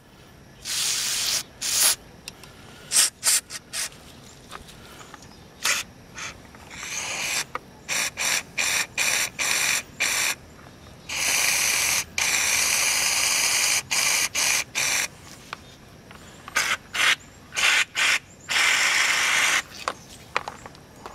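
Aerosol brake cleaner sprayed into a scooter speedometer cable sheath, flushing out the old factory grease. It comes as a run of hissing blasts: many short squirts, a few about a second long, and one held for about three seconds midway. Some blasts carry a steady pitched ring.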